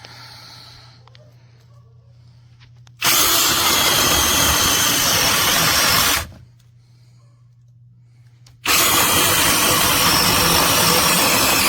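Cordless brushless mini chainsaw with a 6-inch bar running at full speed in two bursts of about three seconds each, each starting and stopping abruptly.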